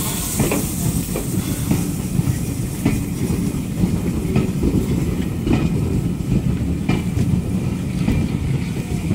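Vintage wooden-bodied railway carriages rolling past the platform: a steady low rumble, with the wheels clicking over the rail joints at irregular intervals.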